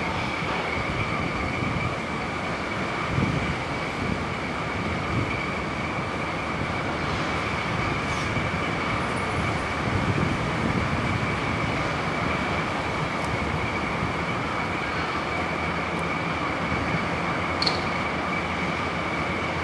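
Diesel locomotive idling at a standstill at the head of a container freight train: a steady engine rumble with a steady high whine over it.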